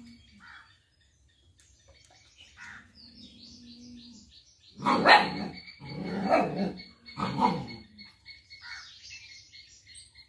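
A dog barking, three loud barks about five, six and seven seconds in, after a low growl. Insects chirp steadily in the background.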